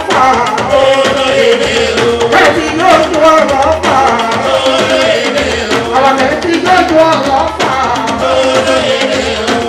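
Yoruba praise music: a singing voice over hand drums and percussion.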